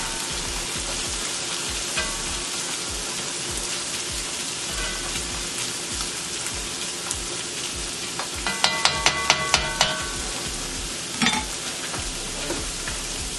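Salmon fillets and diced onion sizzling steadily in hot olive oil in a cast-iron skillet, with a spatula stirring the onions. About two-thirds of the way through comes a quick run of about seven sharp clicks.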